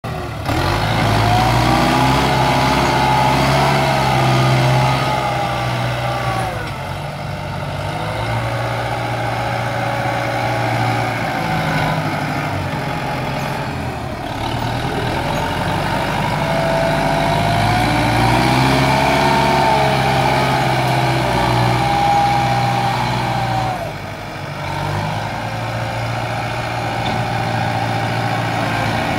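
Kubota tractor's diesel engine working under load while grading soil, its revs rising and falling in two long surges, with a gliding whine above the engine note.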